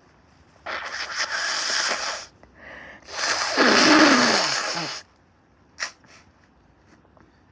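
A congested, mucus-filled nose being blown hard twice, the second blow longer and louder with a honking tone that drops in pitch.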